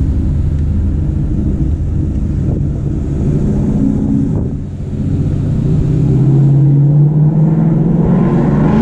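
Ford Mustang GT's 5.0 V8 with aftermarket X-pipe and axle-back exhaust, heard from inside the cabin while driving, running steadily, then easing off briefly and pulling harder in a louder drone that climbs slowly in pitch over the last few seconds.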